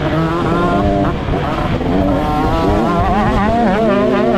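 Pit bike engine revving under varying throttle, its pitch wobbling up and down rapidly and climbing over the second half, over a rough low rush of noise.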